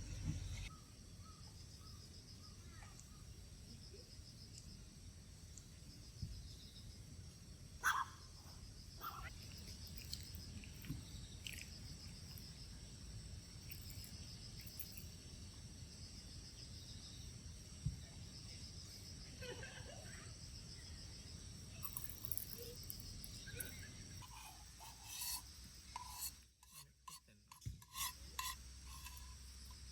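Insects chirping in a steady, high, evenly pulsing pattern, with a few faint clicks and knocks.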